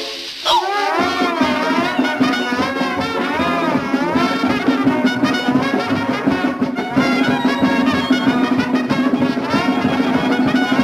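Orchestral cartoon score led by trumpets and trombones, with wavering, bending brass lines over a held low note and fast busy accompaniment; it comes in loudly about half a second in.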